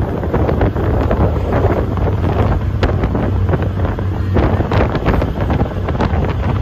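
Wind rushing over the phone's microphone on the open deck of a moving ferry, loud and uneven, over the steady low hum of the ferry's engines.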